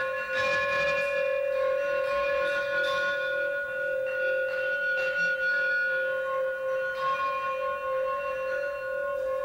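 Metal rods on a percussion frame ringing together in a steady, shimmering drone of several bell-like tones, with a few soft new strokes every couple of seconds.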